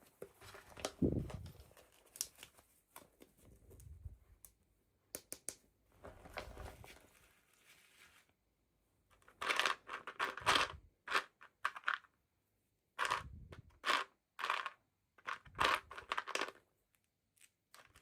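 Toy packaging being opened by hand: plastic and cardboard crinkling and tearing in short, irregular bursts with brief pauses between.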